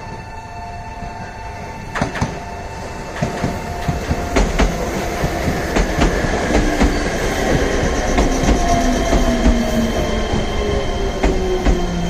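Meitetsu electric train drawing nearer, its wheels clacking over the rail joints and growing louder. A motor whine falls steadily in pitch through the second half as the train slows.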